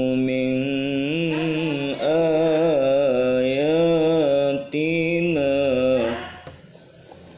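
A man's voice reciting the Quran in melodic tilawah style: one long, ornamented held phrase with the pitch wavering up and down, broken by two short pauses, ending about six seconds in.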